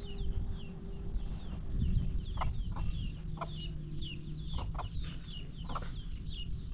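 Chickens calling: a steady string of short, high, falling peeps with occasional lower clucks, over a low rumble.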